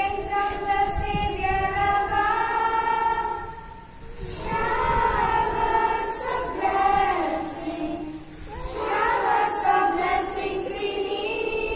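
A small group of schoolgirls singing a prayer song together into a microphone, in three phrases with short breaks about four and eight and a half seconds in.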